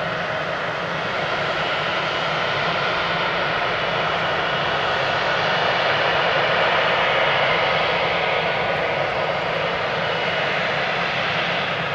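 Boeing 777-200ER's twin GE90 turbofans running as the airliner rolls along the runway after landing: a steady jet rush with a faint whine, swelling a little about six or seven seconds in as it passes closest.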